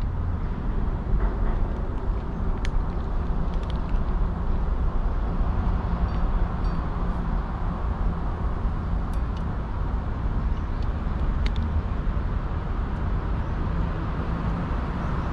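Steady low rumble of city traffic, with a few faint sharp clicks from a cat eating out of a metal dish.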